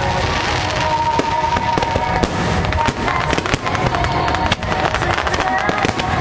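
Aerial fireworks bursting in rapid succession, with many sharp cracks and crackling over a continuous rumble. Music plays underneath.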